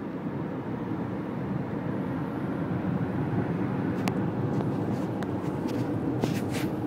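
Steady low drone of a car's engine and tyres heard from inside the cabin while driving, with a sharp click about four seconds in.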